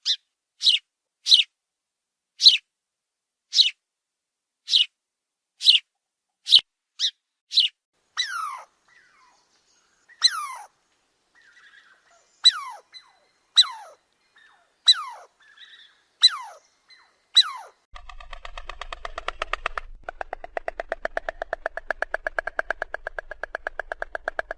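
Bird calls: a run of short, high chirps falling in pitch, about one a second, then longer calls that slide steeply down. About 18 seconds in they give way to a rapid, even buzzing rattle of many pulses a second.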